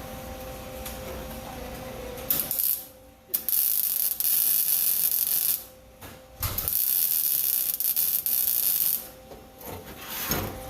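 Welder laying two short stitch welds on sheet-metal floor pans, each a crackling hiss of about two seconds, with a brief pause between them.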